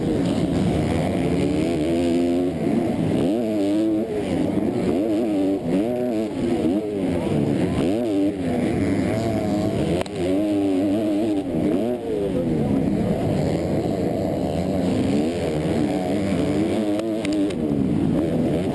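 Motocross bike engine revving hard under race throttle, its pitch climbing and dropping again and again as the rider works the throttle and shifts through the gears, heard close up from a camera mounted on the bike.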